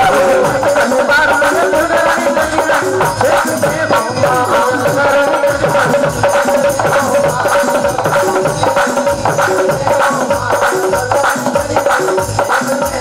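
Instrumental passage of Indian devotional folk music: a keyboard melody held over a steady, fast hand-drum rhythm, with no singing.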